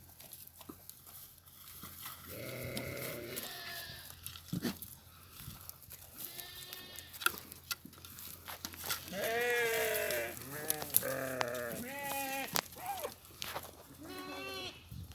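Goats bleating, several wavering calls one after another, the loudest about two-thirds of the way through, with a few sharp clicks in between.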